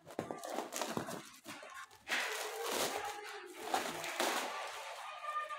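Packaging bags rustling and crackling irregularly as items are handled and rummaged through.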